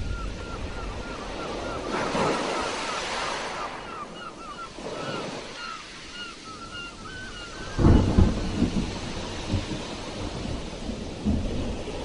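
Sea waves washing on the shore: surf swells about two seconds in, and a heavier wave breaks near eight seconds with a deep crash. A fast run of short high chirps, about three a second, sounds over the surf until the big wave breaks.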